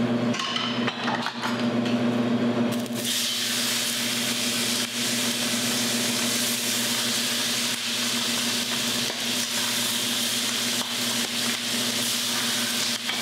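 Bone-in, skin-on chicken thighs laid into hot bacon fat in a frying pan, sizzling. The sizzle starts about three seconds in and holds steady as more pieces go in, over a steady low hum.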